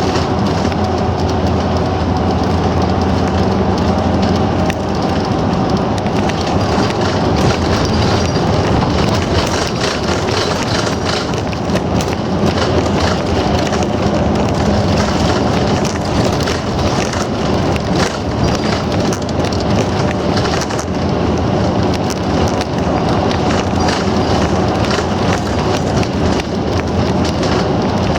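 A bus driving along the road, heard from inside the cabin: a steady drone of engine and tyres, with small rattles and clicks running through it.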